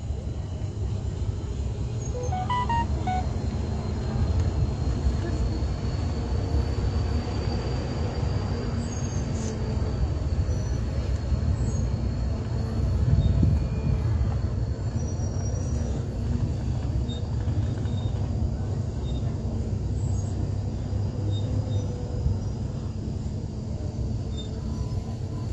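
Steady low rumble of a moving vehicle and wind noise on the microphone, with a thin high whine running above it. A few short high notes come about two seconds in.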